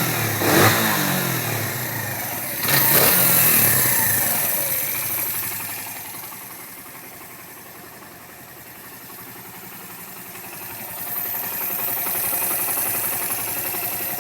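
Suzuki GN125H's air-cooled single-cylinder four-stroke engine, its cam chain freshly adjusted, revved twice (rising and falling in pitch, once right at the start and again about three seconds in), then settling to a steady idle.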